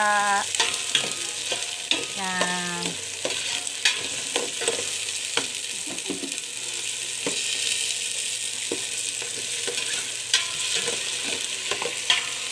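Garlic, onion and tomato sautéing in oil in a stainless steel pot: a steady sizzle, with a metal spoon stirring and scraping against the pot in frequent short clicks. Two brief pitched tones sound in the first three seconds.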